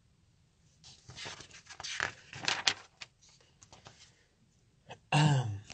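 A man's breathy vocal noises, coughing or throat-clearing sounds and mumbling, in a small room; a short, loud voiced sound comes near the end.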